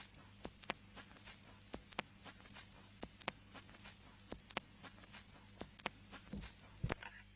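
Vinyl record surface noise with no programme playing: irregular crackles and pops from the stylus in the groove, several a second, over a low hum and hiss. Near the end the crackle stops suddenly and only a fainter steady hiss remains.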